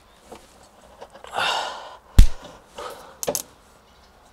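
A breathy exhale, then one loud sharp metallic snap about two seconds in and a few lighter clicks about a second later, as spring clips are fitted onto a brake pad.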